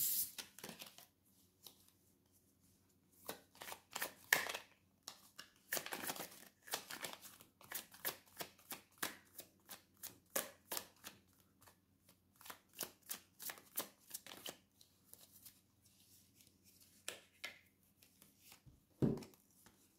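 A tarot deck being shuffled and handled: a quick run of card clicks and flicks through the middle, thinning to scattered ones, with a low thump near the end.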